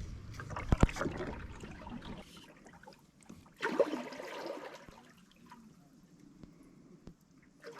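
Kayak paddling: water splashing and trickling off the paddle blades, with a sharp knock about a second in and a short pitched sound about three and a half seconds in, then quieter gliding.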